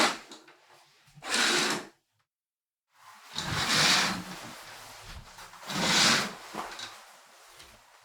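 Window curtain being drawn along its rail: two quick swishes, then a longer pull of about five seconds that swells twice.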